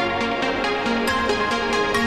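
Electronic dance music with a steady, even beat and sustained synth chords.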